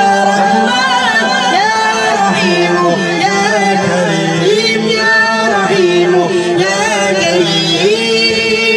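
Devotional naat singing: a voice singing a gliding, ornamented melody over a steady low drone.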